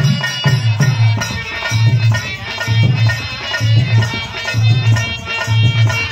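Live folk music instrumental passage: hand drums play a steady beat with a deep stroke about once a second, over sustained melody notes.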